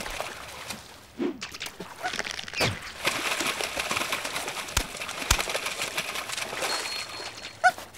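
Cartoon sound effects of water splashing as a bear's paw scoops fish out of a hole in the ice, with sharp slaps of fish landing and a couple of falling swishes.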